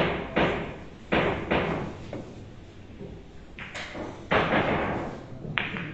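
Boccette billiard balls knocking against each other and the cushions: a string of sharp clacks, about eight strikes spread unevenly, each ringing briefly in a large hall.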